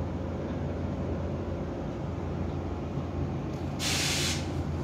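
Steady low background hum, with a short burst of hiss a little before the end.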